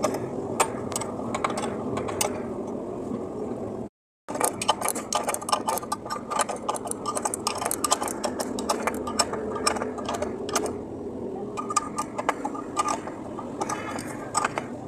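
Metal hand-tool work on a car's air-conditioning compressor during a pulley-bearing replacement: a busy run of sharp metallic clicks and taps over a steady rattle, broken by a moment of dead silence about four seconds in.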